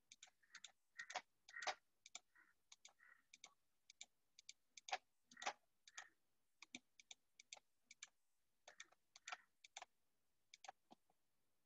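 Faint, irregular clicking of a computer mouse, a few clicks a second, as handwritten ink strokes are erased one by one on the screen.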